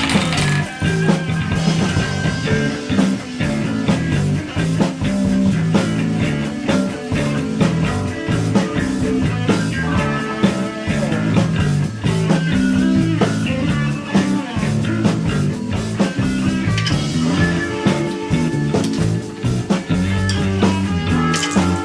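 Instrumental background music in a rock style, with guitar and drums keeping a steady beat.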